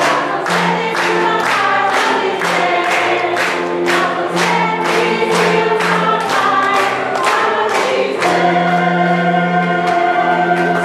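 A stage cast singing together in chorus while clapping on the beat, about two claps a second. About eight seconds in the clapping stops and the voices hold a long final chord.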